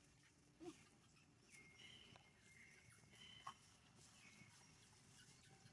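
Near silence: faint outdoor background with a few soft, high, thin calls about halfway through.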